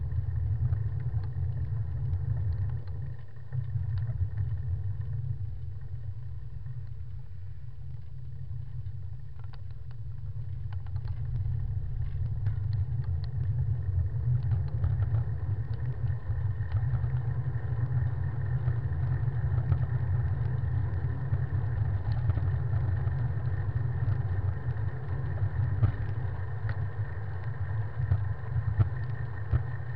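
Steady low rumble of a moving bicycle heard through a handlebar-mounted camera: wind on the microphone and road vibration, with small clicks and rattles. It eases off for a few seconds after about four seconds in, then builds again.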